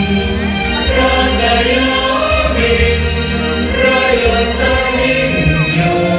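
Choir singing with instrumental accompaniment and a steady low bass, the soundtrack of a light-and-sound show played over a loudspeaker sound system.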